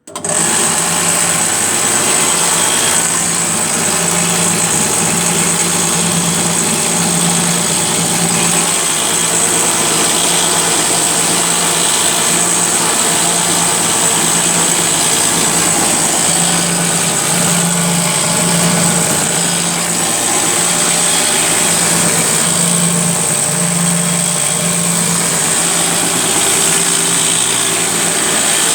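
Homemade 2x72 belt grinder with delrin rollers running: the motor hums steadily under the high hiss of the abrasive belt running over the rollers. It comes in suddenly at full speed and stays even throughout.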